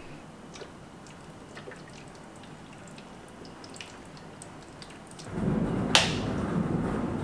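Faint dripping and trickling as water is poured from a glass jug into a countertop smart-garden planter. About five seconds in, a louder steady low noise sets in, with a sharp click about a second later.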